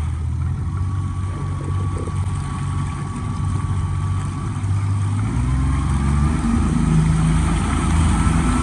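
Mercury four-stroke outboard motor running on a jon boat while towing a rider. About five seconds in it speeds up and gets louder as the throttle is opened.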